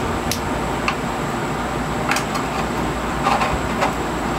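Cardboard product boxes and packaging being handled on a desk: a handful of light clicks and taps over a steady background noise.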